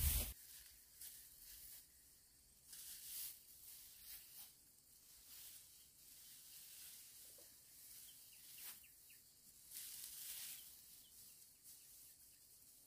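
Dry straw rustling in faint, scattered swishes as it is gathered and bundled by hand.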